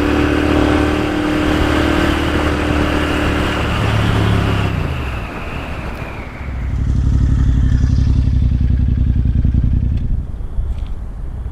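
Motorcycle engine running: its pitch drops as it slows about four to five seconds in, then a loud, even low throb from about six and a half seconds that eases off near ten seconds.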